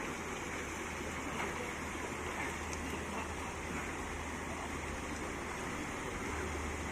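Steady rush of water flowing at a spring-fed stream.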